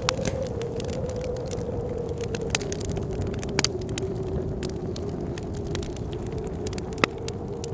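Wood fire crackling, with scattered sharp pops, a few of them louder, over a steady low rumble and the slowly wavering howl of blizzard wind.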